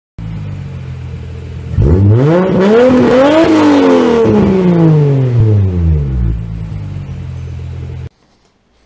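Car engine idling, then revved once about two seconds in: the pitch climbs for about a second and a half and slides slowly back down to idle over the next three seconds. The sound cuts off abruptly shortly before the end.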